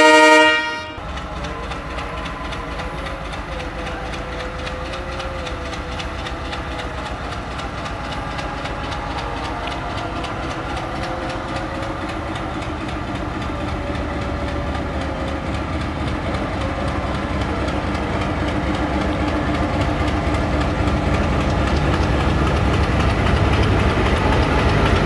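A diesel locomotive's horn blast cuts off about a second in. Then the locomotive's engine runs as the train pulls away, with wheels on the rails, growing steadily louder as the locomotive and its coaches come past.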